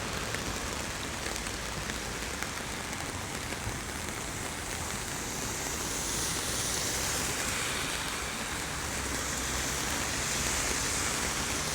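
Steady rain falling, with a low, continuous rumble of road traffic underneath.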